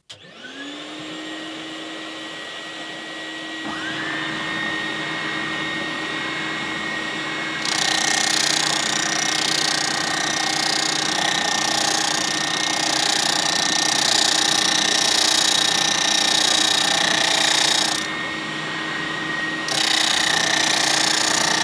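Dust extractor and Triton oscillating spindle sander motors starting one after the other and running steadily. About eight seconds in, the sanding drum starts grinding into the plywood jig with a loud hiss, breaks off briefly near the end, then bites again.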